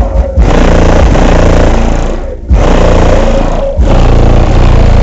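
Extremely loud, heavily distorted subwoofer bass from two 18-inch Ascendant Audio Mayhem subwoofers playing a slowed-down rap track, with the car's loose front grille and bumper rattling and buzzing. The bass briefly drops out twice, about 2.4 and 3.8 seconds in.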